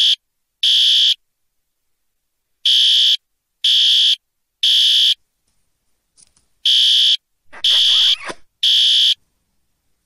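Fire alarm horn sounding the temporal-three evacuation signal: groups of three loud, high-pitched blasts about a second apart, each group followed by a pause of about a second and a half.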